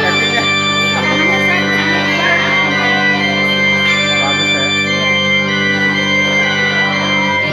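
Electronic keyboard played as a duet on an organ-like voice: a melody over sustained chords, with a held bass note played by hand that changes near the end.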